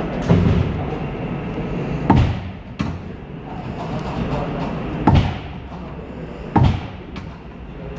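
A stainless-steel door with a lever handle on an Odakyu 3000-series train is opened and shut repeatedly while it is being repaired. It bangs shut with three loud knocks, about two, five and six and a half seconds in, with lighter knocks of the latch and handle between them, over a steady low hum.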